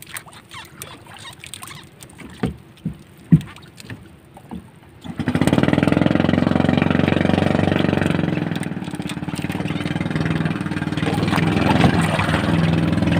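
A few light knocks on the wooden boat, then about five seconds in a small boat engine starts abruptly and runs steadily and loudly.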